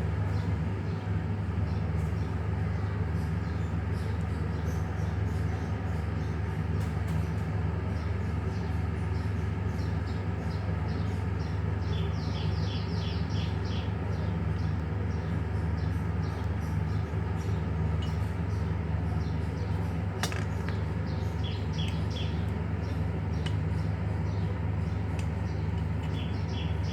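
A steady low hum runs throughout, with light clicks of small parts and tools being handled during bearing replacement on a handheld cutting machine, one sharper click about two-thirds of the way in. Short quick trills of bird chirps come several times, the first about halfway through.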